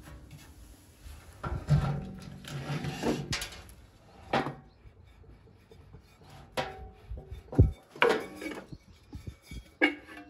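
Irregular knocks, clanks and scraping of the metal wheel head of a Venco pottery wheel as it is handled and worked off its shaft. A few of the knocks ring briefly, and the loudest thump comes about three-quarters of the way through.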